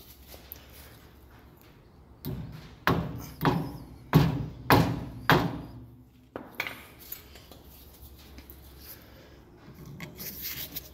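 Six sharp taps on the front hub's castle nut, a little over half a second apart, as the cotter pin is tapped through the nut, then softer scraping near the end as side cutters grip the pin.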